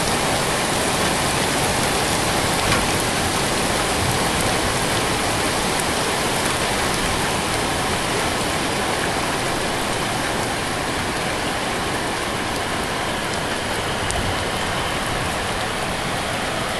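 Torrential rain pouring down in a dense, steady hiss, easing slightly toward the end.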